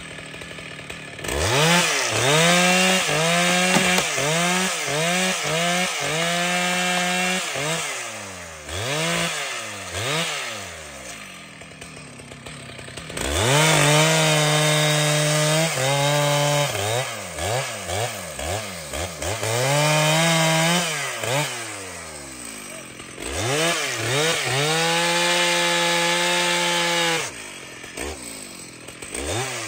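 Large two-stroke chainsaw throttled up and down in repeated bursts: several quick blips, then longer stretches held at full revs for a few seconds each, dropping back toward idle between them.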